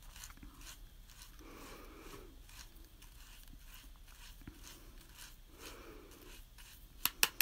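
Paintbrush being swirled and scrubbed in a plastic cup of rinse water, a faint swishing with small ticks as the bristles rub against the inside of the cup. A few sharp clicks come near the end.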